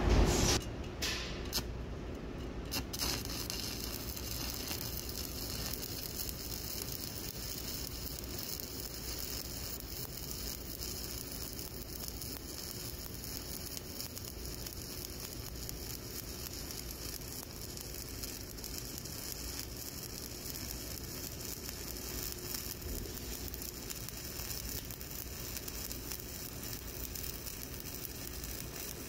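Shielded metal arc (stick) welding with an E7018 electrode, running a cover pass on a horizontal groove weld. The arc burns steadily after a few sharp cracks in the first three seconds.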